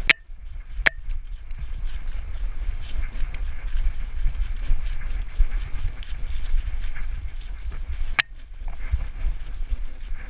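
Wind and body jostling on a GoPro mounted on a running dog's back: a steady low rumbling buffet with the patter of paws through dry leaves, and a few sharp clicks near the start and about eight seconds in.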